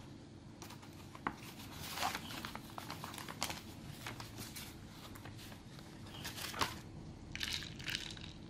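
Paper rustling and crinkling in irregular bursts as sheets are handled under a clear plastic ruler, with two sharp clicks, one about a second in and a louder one about two-thirds of the way through.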